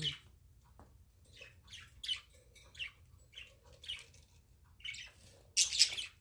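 Pet budgies chirping: a run of short, high chirps spaced about half a second to a second apart, then a louder, longer burst of chirping near the end.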